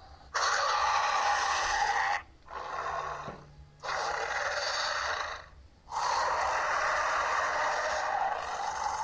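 Baryonyx dinosaur sound effect: a run of four breathy, hissing calls with no clear pitch. The second call is quieter, and the last runs about three seconds.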